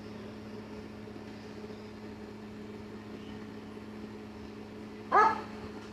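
A steady low electrical hum, with one short, high dog whimper about five seconds in.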